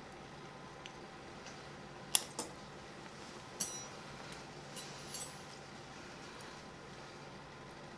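Metal surgical instruments clicking and clinking as they are handled: a sharp click about two seconds in, then a few more, one ringing briefly. A steady hum runs underneath.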